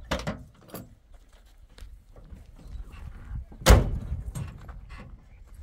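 A few light knocks, then one heavy thump a little past halfway through, the loudest sound, followed by a couple of lighter knocks.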